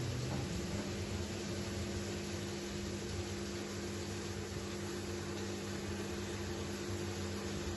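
Steady hum of a running kitchen appliance: several even tones over a constant hiss.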